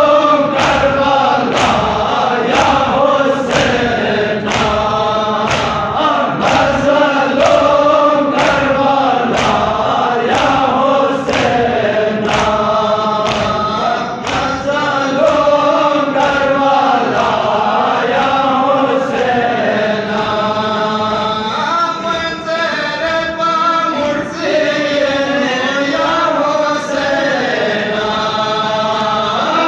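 Congregation of men chanting a Muharram noha together, with sharp rhythmic slaps of matam chest-beating, a little more than one a second, that thin out about halfway through.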